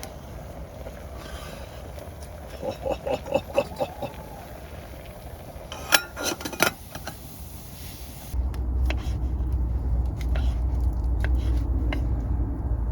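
Camp cooking sounds: short clicks, taps and scrapes of a cooking pot and utensils, with a sharp clatter about six seconds in. From about eight seconds in, a steady low rumble sets in, with scattered sharp crackles over it.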